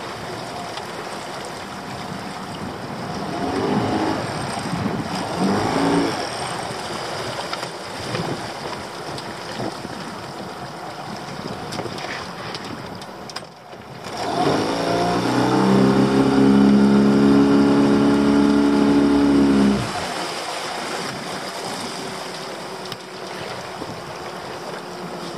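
Small open fishing boat under way, its motor running with water and wind noise. About fourteen seconds in, a motor revs up, runs steadily as the loudest sound for about six seconds, then cuts off suddenly.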